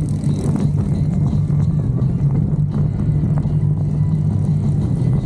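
Motorcycle engine running steadily at cruising speed, a constant low drone with no change in pitch.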